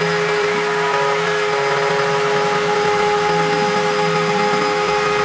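Router spindle of a homemade plywood CNC router milling aluminium sheet: a steady, high spindle whine over the hiss of the cutter in the metal, with a faint lower tone sliding up and down underneath as the cut moves.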